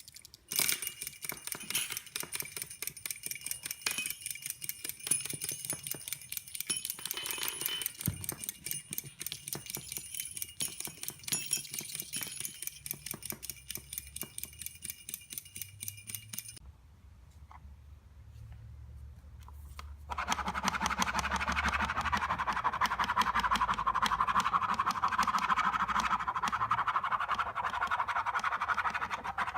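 Kinetic noise-making objects: a rapid, regular mechanical clicking with a faint high ringing runs for about the first sixteen seconds. After a short quieter lull, a steady buzzing rattle like a small motor-driven device starts about twenty seconds in.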